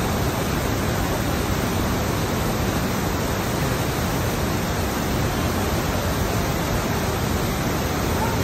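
Water rushing steadily out of the mill race beneath a turning wooden water wheel, an even wash of pouring water with no distinct knocks or creaks.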